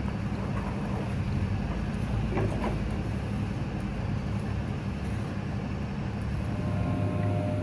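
A steady low mechanical rumble, like an engine running, over a hiss of broad noise; a couple of faint higher steady tones join in near the end.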